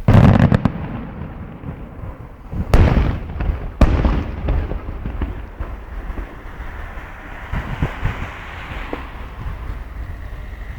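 Aerial firework shells bursting at a distance: a loud bang at the start, another about three seconds in and a sharper one about a second later. Each bang is followed by crackling and a rumbling echo.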